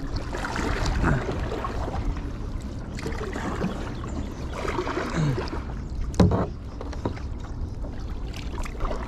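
Kayak paddling: the paddle dipping and pulling through water, with a sharp knock about six seconds in.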